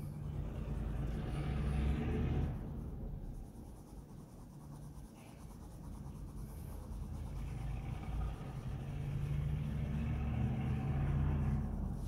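Coloured pencil scratching on paper as a drawing is shaded in, over a low rumble that swells twice, in the first few seconds and again from about seven seconds on.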